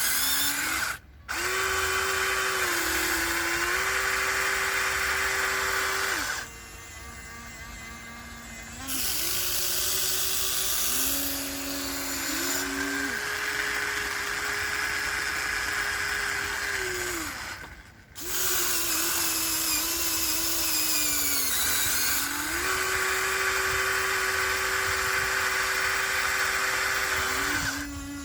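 Electric motors and gearing of a Huina 1494 radio-controlled excavator whining as it digs, the pitch stepping down and up as the motors load and switch between functions. It cuts out briefly twice and runs quieter for a couple of seconds early on.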